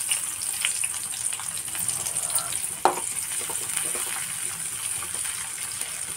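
Chopped onion sizzling in hot oil in a metal kadhai, stirred with a steel spoon, with one sharp knock of the spoon against the pan about three seconds in.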